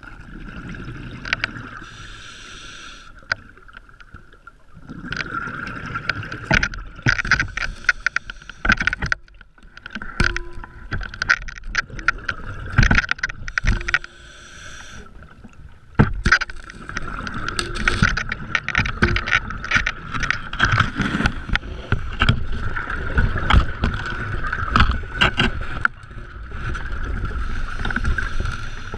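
Underwater sound, muffled by a camera housing, of a scuba diver in a tight cave squeeze: bursts of bubbling and crackle from the regulator's exhaled air every few seconds, mixed with knocks and scrapes of the sidemount tank and gear against rock, over a steady high hum.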